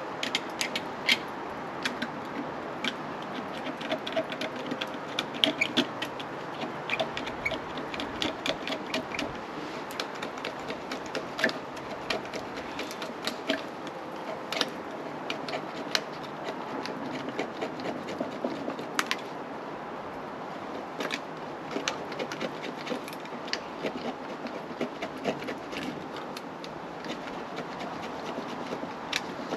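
Stanley 10-049 utility knife's steel blade scraping and picking at resinous fatwood, many short, irregular scratching strokes.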